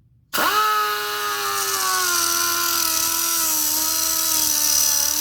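Pneumatic air disc cutter starting up suddenly and running with a steady high whine, its pitch drifting down a little as the cut-off wheel cuts through bicycle shift-cable housing held in a vise.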